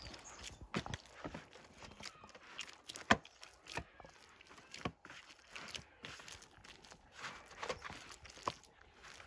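Dough being kneaded by hand in a plastic basin: irregular squelches, soft tearing sounds and dull thuds as the hand presses and folds it, with one sharper thump about three seconds in.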